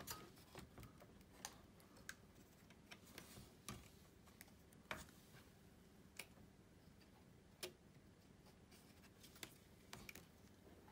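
Faint, irregular clicks and taps of a Sony Vaio laptop's plastic parts being handled and pressed into place on the open chassis during reassembly.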